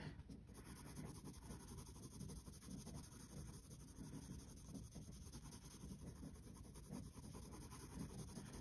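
Graphite pencil shading on sketchbook paper: a faint scratching of small, quick, repeated strokes as the lead is worked round in little circles.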